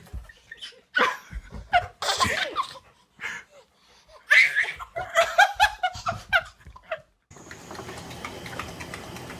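A person laughing in separate bursts, with a quick run of short repeated laughs in the middle. About seven seconds in it cuts off suddenly and a steady hiss follows.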